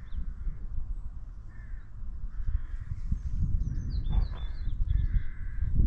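Wind buffeting the microphone with a low, uneven rumble, while crow-family birds caw several times. A small bird chirps briefly about four seconds in.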